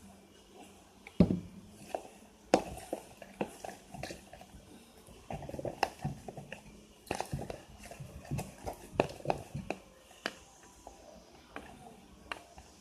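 Clear-glue slime being stirred in a container: irregular sticky clicks and squelches, with sharper taps against the container now and then.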